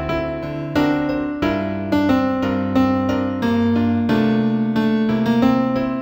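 Instrumental new-age piece in F minor played on piano, a slow melody of single notes over held bass notes and chords.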